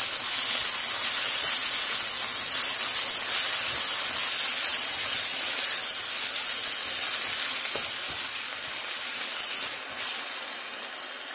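Chopped onions, ginger-garlic paste and green chilli paste sizzling in hot oil, stirred around the pan with a wooden spatula. The sizzle is steady, then dies down somewhat in the last few seconds.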